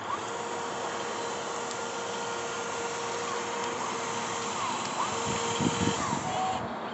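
Radio-controlled excavator running with a steady whine over a hiss as it digs, with a short cluster of louder knocks a little past five seconds in.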